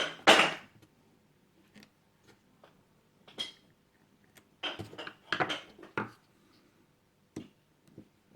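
Small metal parts of a motorcycle fuel filler cap clicking and tapping against each other as they are lined up and fitted together by hand: two sharp clicks at the start, a quick run of clicks about five seconds in, and a few faint taps between.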